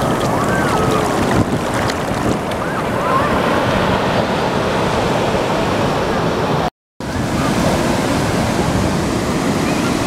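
Heavy ocean surf breaking and washing up the beach in a continuous dense rush of foam and water. The sound drops out completely for a moment about seven seconds in.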